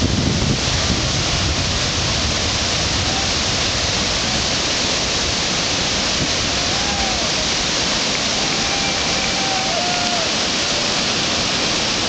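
Steady rushing noise throughout, with a few faint, short whistle-like notes about seven to ten seconds in.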